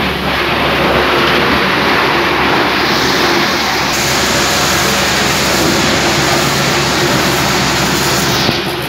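Kalender plastic crushing machine (granulator) running with a loud, steady mechanical noise and a constant hum.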